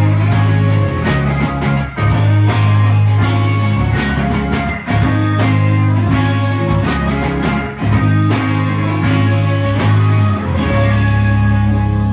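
Rock band playing live: electric guitars, bass and drums, loud, recorded on a phone from the crowd, with a brief dip in the playing about every three seconds.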